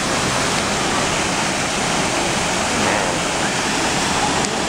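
Looking Glass Falls, a waterfall pouring into its plunge pool: a steady, loud rush of falling water.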